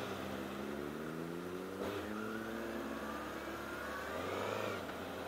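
Honda CBR1000RR Fireblade's inline-four engine pulling at low speed, its pitch rising, with a short click about two seconds in as it changes gear, then rising again.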